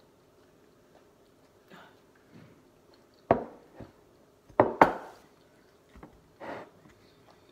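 Dishes knocking and clinking on a table: a white plate of fried chicken set down with a sharp knock about three seconds in, then a quick pair of sharper clinks of tableware a second later and a few softer knocks after.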